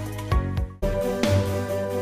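Background music with a regular beat that cuts out briefly just under a second in, then comes back with a new section.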